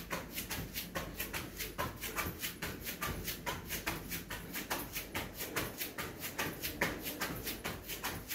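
Quick, even footfalls on a tiled floor from someone doing jumping jacks as a warm-up, several light landings a second in a steady rhythm.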